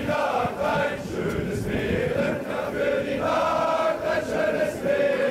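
A group of men singing together in unison, holding long notes that glide slowly from one pitch to the next.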